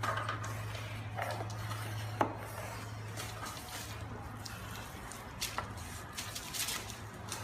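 Light metallic clicks and clinks of a tool being handled, the sharpest about two seconds in and a few more near the end, over a steady low hum.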